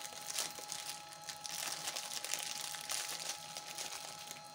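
Crinkling, rustling noise with scattered light crackles and clicks, from something being handled off-camera while spices are readied for a pakora batter.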